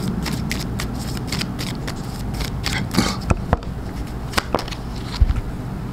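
Tarot cards being shuffled by hand: an irregular run of light clicks and flicks as the cards slap against the deck, over a low steady hum.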